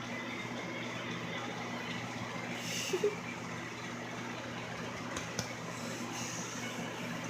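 A steady low hum with several fixed low tones under a faint hiss, and a couple of brief faint knocks about three and five seconds in.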